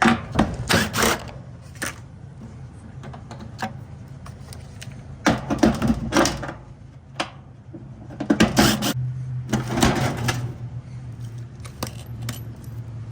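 Metal tools and parts clinking and rattling in several short clusters while a dryer motor is being unbolted, over a low steady hum.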